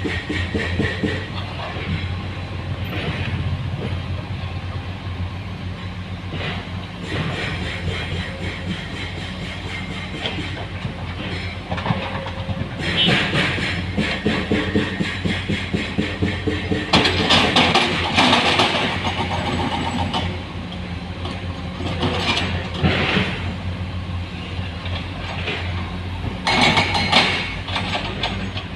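Heavy diesel engine running steadily as an excavator loads stones into a dump truck. Louder spells of rock clatter and scraping come several times, mostly in the second half.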